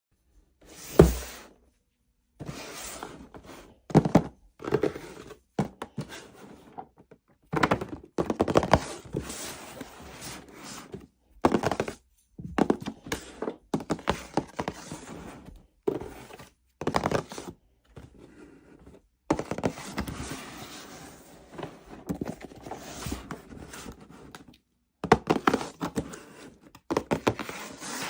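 Toys and packaging being handled: a sharp thunk about a second in, then a run of knocks, clatters and rustling that stop and start abruptly.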